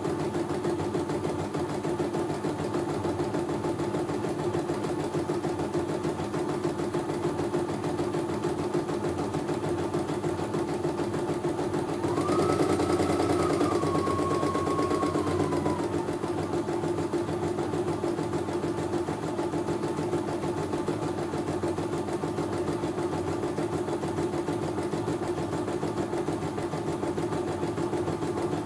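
CNY E900 computerized embroidery machine stitching a design at steady speed, with a fast, even needle chatter, as a test stitch-out. About halfway through, a higher whine rises, holds for a few seconds and falls away as the sound briefly gets louder.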